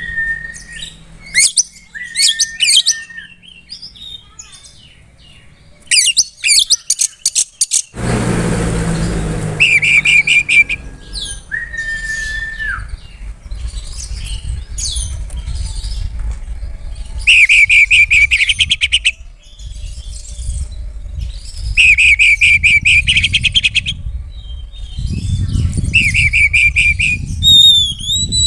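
Oriental magpie-robin singing a varied song: clear held whistles and rapid trills, repeated in bursts of about two seconds. About eight seconds in there is a brief rush of noise, and after that a low rumble runs under the song.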